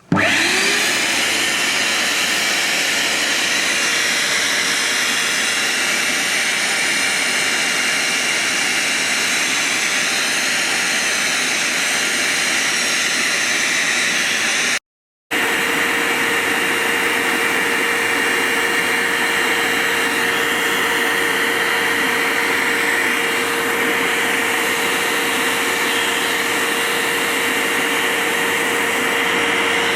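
Vax HF1400 upright vacuum's motor switched on, winding up over the first second, then running steadily with a steady hum while it sucks liquid off the carpet through the spill pickup tool. The sound drops out completely for a moment about halfway through.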